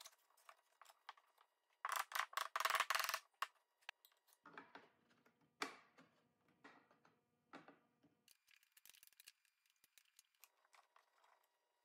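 Thin hardwood shelf boards being handled and slid into a wooden cabinet frame: a short flurry of wood scraping and clattering about two seconds in, then a few light, separate knocks of wood on wood.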